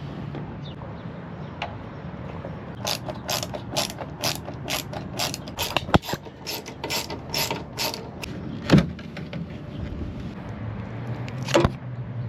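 Hand ratchet wrench clicking in a quick, even run of about two to three clicks a second as it is worked back and forth on the tail light fasteners, with a few louder knocks in between.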